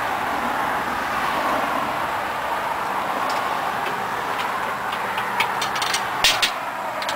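A power tool runs steadily while milling wood into boards, with several sharp knocks near the end.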